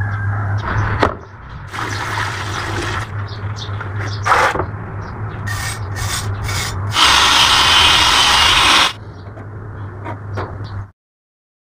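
Hand wire brush scrubbing a rusty steel cleaver blade in scraping strokes, loudest for about two seconds near the middle, with other handling and rubbing on the blade around it. A low steady hum runs underneath, and the sound cuts off to silence near the end.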